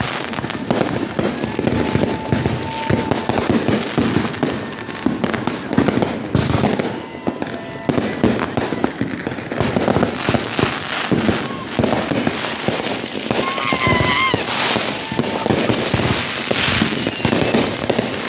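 Many fireworks going off at once: a dense, continuous crackle of pops and bangs.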